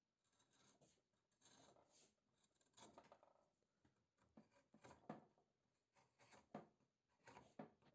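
Faint hand-work sounds: irregular rubbing and scraping strokes with occasional light clicks.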